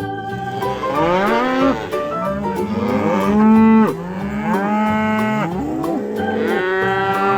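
Cows mooing, many long calls overlapping one after another.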